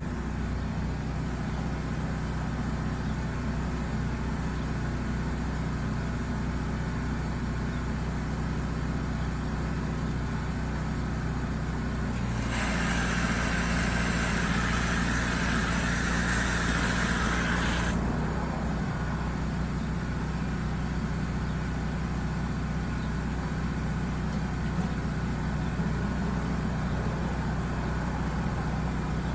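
An engine running steadily throughout. About twelve seconds in, a hissing spray starts, runs for about five seconds and cuts off sharply.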